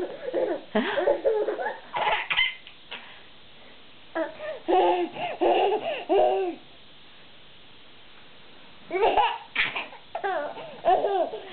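Baby laughing and babbling in bursts, with a quiet stretch of about two seconds past the middle.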